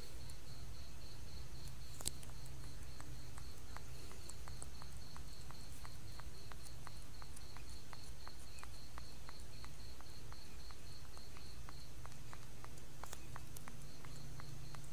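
Infant macaque sucking on fur as if nursing, making soft rapid clicks about four a second. Behind it a cricket chirps in a quick even pulse over a low steady hum.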